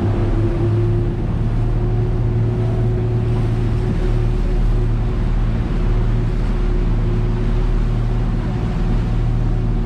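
Rigid inflatable boat under way at speed: its engine gives a steady drone over the rush of water and spray along the hull.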